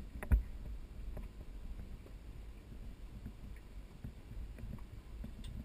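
Low rumble and small knocks on a small fishing boat, with one sharp knock on the boat about a third of a second in.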